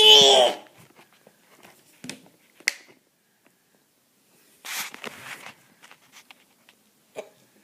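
A baby's loud, high-pitched squeal ends about half a second in, followed by scattered faint clicks and short rustles, with one sharp click near the middle.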